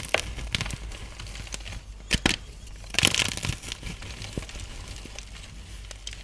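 Blocks of gym chalk being crushed and crumbled by hand, giving crisp crackles and crunches. There are sharp cracks about two seconds in, a dense burst of crunching around the three-second mark, and then softer crumbling.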